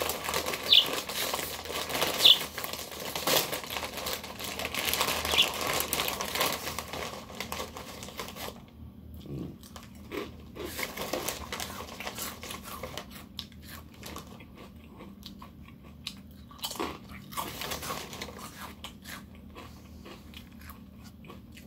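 Kettle-cooked potato chips being bitten and chewed, loud crunching mixed with the crinkling of the chip bag as a hand goes into it. After about eight seconds the crunching gives way to quieter chewing.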